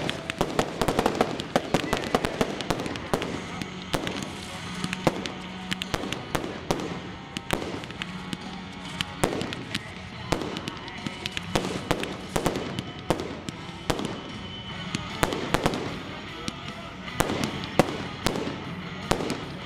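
Fireworks display: a rapid, continuous run of bangs and crackles from shells launching and bursting, with no pause.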